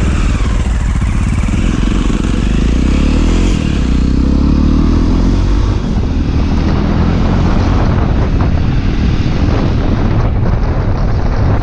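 Motorcycle engine running under way, its note rising and falling a few seconds in as the throttle changes.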